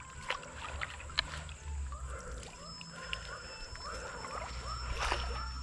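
A long-handled dip net is swept through shallow pond water and lifted out, with a few sharp splashes and drips, the strongest about five seconds in. From a little over two seconds in, an animal calls over and over, two or three times a second, over a thin high steady tone.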